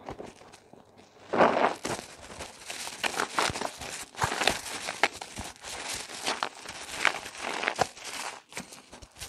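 Rubber-gloved hands squeezing a water-soaked bar of soap in thick lather: wet squishing and crackling of foam in irregular squeezes. It is fairly quiet for about the first second, and the loudest squeeze comes about a second and a half in.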